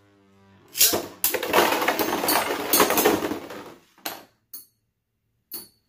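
Beyblade Burst spinning tops in a plastic stadium: a faint hum, then about three seconds of loud clattering and grinding as the tops collide, then a few sharp clicks as they knock together and wind down.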